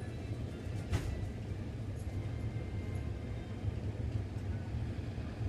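Steady low background rumble with a single sharp click about a second in.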